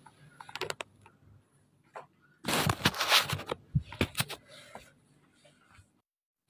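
Handling noise from a phone being moved about in the hand: rustling and rubbing against the microphone with scattered clicks, loudest in a noisy stretch near the middle.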